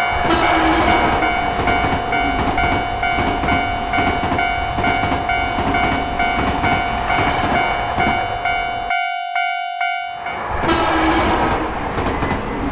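Japanese level-crossing warning bell ringing in a quick steady pulse, about two and a half rings a second, while a train passes with loud rumbling wheel noise. The sound cuts off suddenly about nine seconds in, then a train passes again, and a high steady tone comes in near the end.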